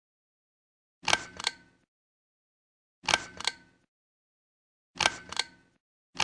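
Hampton Bay Florentine 42-inch ceiling fan clicking in a steady rhythm: a sharp double click with a brief ring, repeating about every two seconds.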